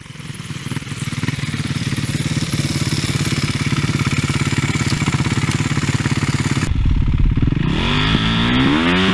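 Dirt bike engine running steadily at idle; after an abrupt cut about two-thirds of the way through, it revs up with a rising pitch.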